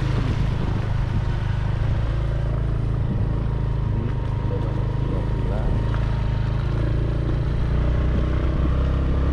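Motorcycle engine running at a steady speed while being ridden, a low even drone with road noise over it.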